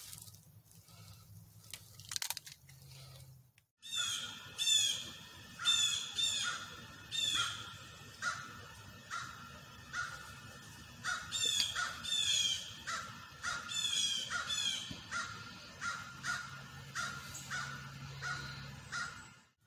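Crows cawing over and over, a harsh call about once a second, beginning a few seconds in after a quiet start.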